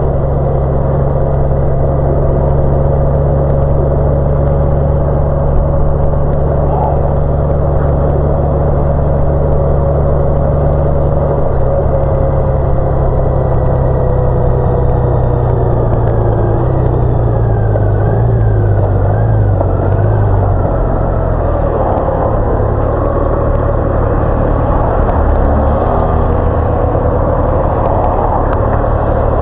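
Large touring motorcycle's engine running at a steady cruise, with wind and road noise. Past the middle its note drops and wavers as the bike slows, then it runs lower as it rolls up to a junction.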